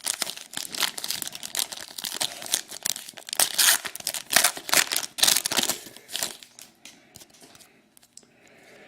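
A trading card pack's wrapper crinkled and torn open, a dense crackling for about six seconds that then tails off to a few faint rustles.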